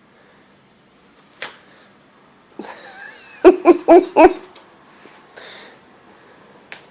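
A woman laughing in four short, loud bursts, with faint rustling and a couple of light clicks around it.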